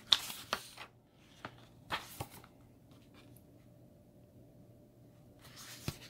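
Pages of a small paper booklet rustling and flapping as it is handled: several short rustles in the first two seconds, a quiet stretch, then a longer rustle with a click near the end.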